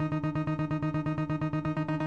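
Electronic background music with fast, even pulses, about eight a second, over a held low note.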